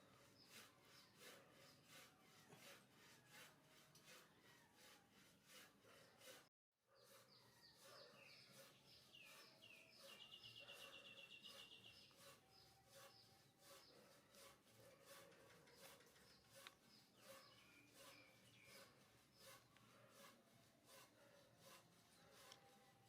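Faint outdoor ambience of small birds chirping, with a rapid high trill about ten seconds in and an even ticking of about two beats a second throughout. The sound cuts out completely for a moment just after six seconds.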